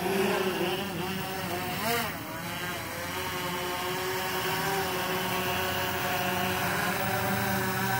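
Yuneec Typhoon H hexacopter drone flying overhead, its six propellers giving a steady, multi-toned hum, with a brief dip and rise in pitch about two seconds in as the rotors change speed.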